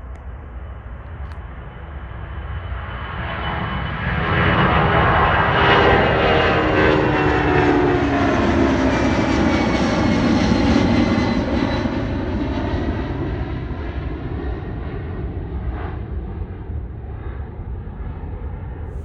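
Airplane taking off and passing close by. The engine noise swells to a loud peak, its tones falling in pitch as the plane goes past, then it fades gradually as the plane climbs away.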